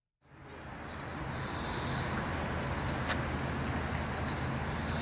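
Outdoor ambience fading in from silence: a steady low hum and hiss, with short high bird chirps recurring about once a second and a single faint click near the middle.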